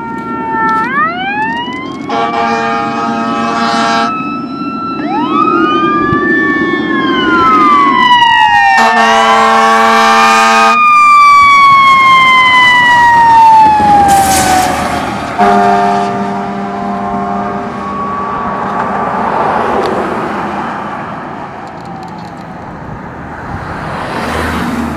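Fire engine on an emergency run, its sirens wailing in several overlapping rising and falling glides, broken by three long blasts of its air horn about two seconds each. The sirens die away in a slow falling wail, and the sound fades as the truck goes past and away.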